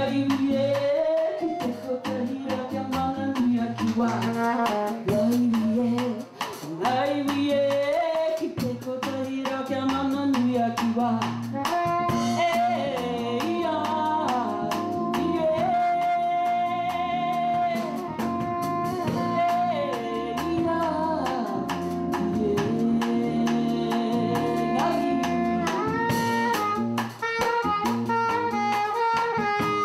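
A woman sings into a microphone with a live jazz band of drum kit, bass and soprano saxophone, holding long notes through the middle.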